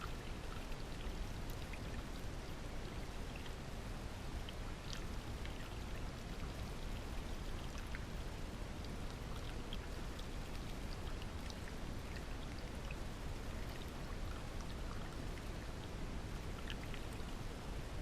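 Baking-soda solution fizzing and gurgling inside a lead-acid car battery as it neutralises the leftover sulphuric acid: a steady hiss with small scattered pops.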